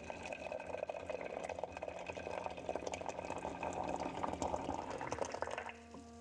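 Water bubbling and trickling in a steady crackly stream that stops suddenly near the end.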